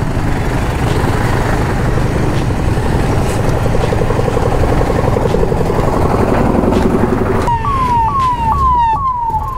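Engine and road traffic noise, then about seven and a half seconds in an ambulance siren starts up: a quick repeating sweep that jumps up and falls, about twice a second.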